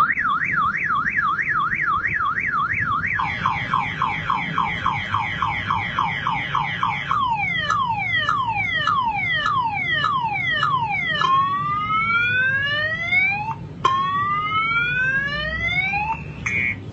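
Motorcycle anti-theft alarm siren cycling through its tone patterns. It starts with a fast up-and-down warble of about three sweeps a second, then rapid chirps, then repeated falling sweeps, then slower rising sweeps, and switches to short beeps near the end.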